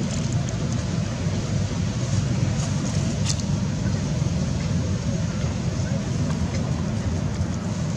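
Steady low rumbling background noise, with a brief high click about three seconds in.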